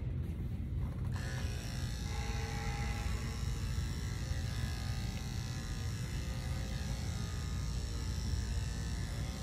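Electric dog grooming clippers running steadily, trimming the coat of a long-haired chihuahua.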